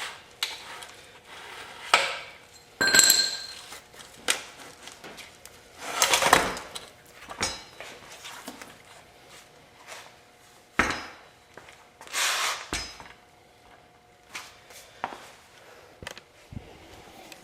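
Rear axle being worked out of a Yamaha YZ250F dirt bike's rear wheel: irregular knocks and metal clinks with a few longer scrapes as the axle, spacers and wheel come free. There is a short ringing clink about three seconds in.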